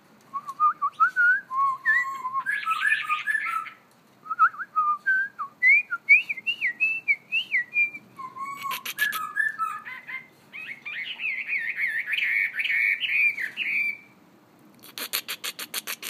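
Chinese hwamei (melodious laughing thrush) singing: loud, varied whistled phrases that slide up and down, in several bursts with short pauses. Twice the song is broken by a brief rapid rattle, about nine seconds in and near the end.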